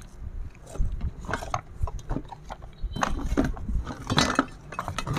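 Hand work on a disassembled STIHL 651 chainsaw during a cylinder replacement: irregular clicks and light knocks of metal parts and tools being handled.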